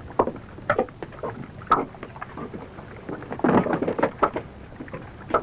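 Irregular knocks and clatters, a couple a second, over a low steady background hiss.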